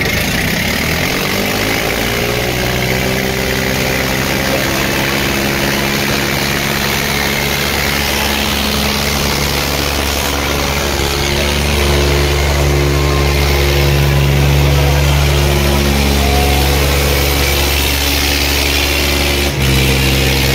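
Diesel tractor engines of a Kubota and an Eicher running hard under load in a tug-of-war pull. The engines rev up in the first couple of seconds and then hold high, getting louder about halfway through, with crowd voices underneath.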